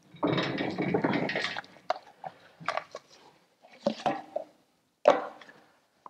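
Rustling as the chipper's owner's manual is handled and put away, lasting about a second and a half, followed by a few scattered light clicks and knocks of handling.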